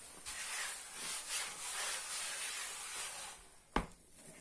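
A hand rubs and spreads flour across a wooden board, making a dry brushing hiss for about three seconds. A single sharp knock comes near the end as a plastic bowl is tipped against the board.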